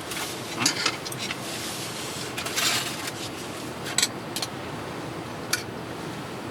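Light clicks and clinks of utensils against dishes at a meal, a handful of separate taps and one short scrape, over a steady background hiss.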